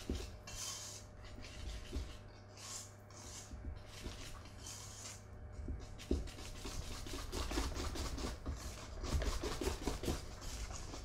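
Wire balloon whisk beating brownie batter in a stainless steel bowl, its wires swishing through the batter and scraping the metal. The strokes come a few seconds apart at first, then turn quick and continuous from about halfway through as the flour and cocoa powder blend into the wet chocolate mixture.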